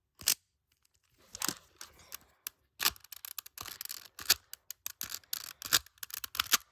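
Plastic 3x3 puzzle cube being turned quickly by hand: rapid, irregular clicking and scraping of plastic layers. It starts with a single click, and from about a second in the clicks come in a dense run.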